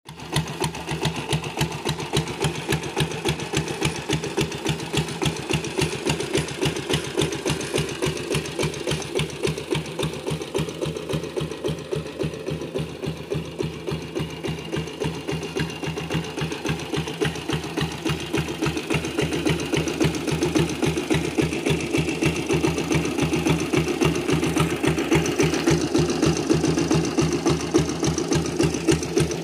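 Single-cylinder diesel engine of the water-pump type, fitted in a 1986 Royal Enfield Bullet, idling with a steady, rapid diesel knock.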